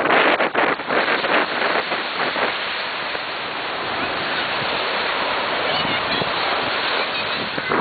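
Small surf breaking and washing up on a sandy beach, with wind on the microphone. The sound is a steady wash, rougher and gustier for the first couple of seconds.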